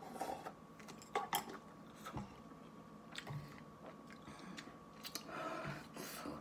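Chopsticks clicking and scraping against a paper noodle cup as the last noodles are pushed into the mouth, followed by chewing. The loudest clicks come a little after a second in.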